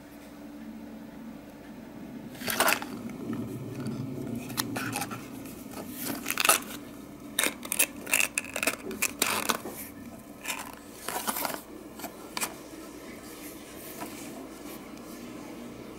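Glossy cardboard box being folded and its tuck flaps pushed closed by hand: a run of short crinkles, scrapes and taps, busiest between about two and twelve seconds in, over a faint steady low hum.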